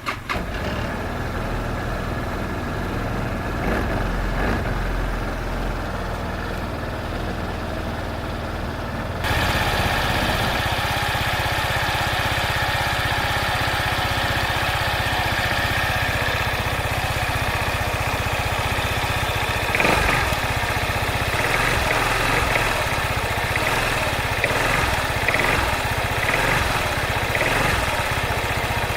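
Quadro3 three-wheeled scooter's engine running steadily at idle; about nine seconds in it steps up to a louder, brighter sound and holds there.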